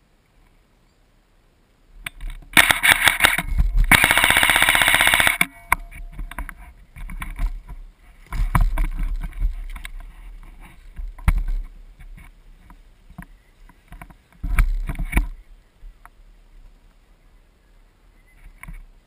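PWS Diablo airsoft rifle firing fully automatic bursts, heard close up from the gun: two long rapid bursts starting about two and a half seconds in, then shorter bursts around eight seconds and near fifteen seconds.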